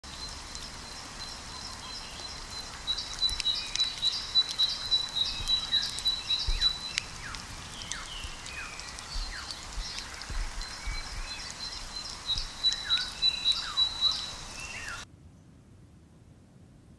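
Marsh ambience of small birds calling: many short chirps that slide down in pitch, with a high, fast pulsing trill heard in two stretches over a steady hiss. It cuts off suddenly near the end.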